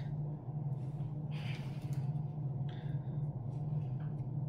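Steady low hum with a few faint, brief rustles from hands handling the glued roses and ribbon of a wrist corsage.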